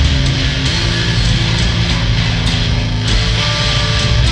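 Loud instrumental heavy metal jam: distorted electric guitar and electric bass playing together over drums with cymbal hits.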